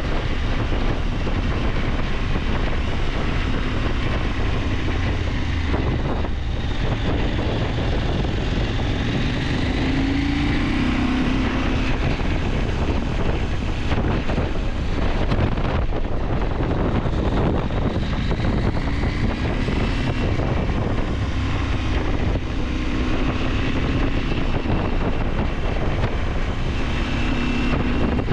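KTM 890 Adventure's parallel-twin engine running under way, with wind rushing over the microphone. The engine note rises and falls, with brief dips about six and fifteen seconds in.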